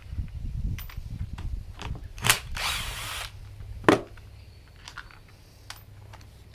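Power drill-driver running in short bursts, most likely backing out the grinder's Torx screws, with sharp clicks and knocks of handling; the loudest is a click about four seconds in, after which it goes quieter.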